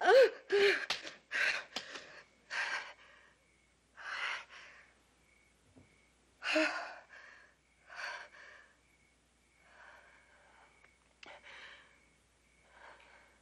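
A woman's distressed, panting gasps with a few whimpers, quick and heavy at first, then slowing to spaced-out shaky breaths that grow fainter.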